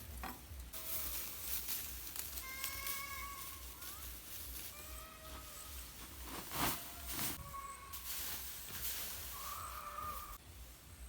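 An animal calling about five times, each call drawn out for up to about a second, with a few sharp knocks near the middle.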